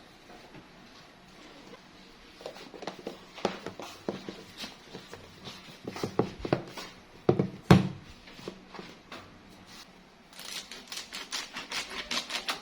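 Kitchen handling sounds during food prep: irregular taps and knocks, one louder thump a little past halfway, then a quick run of sharp clicks near the end.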